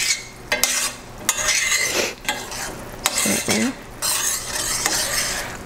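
A metal spoon stirring and scraping a garlic butter sauce around a stainless steel pan, clinking against the pan several times, over a faint sizzle of the sauce cooking.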